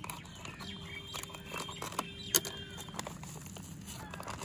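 Scissors snipping through a thin black polythene nursery bag, with the plastic crinkling as it is cut and peeled away from the rose's root ball; scattered small clicks, one sharper click a little past halfway.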